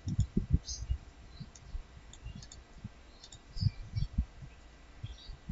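Scattered computer mouse clicks with soft, irregular low thumps.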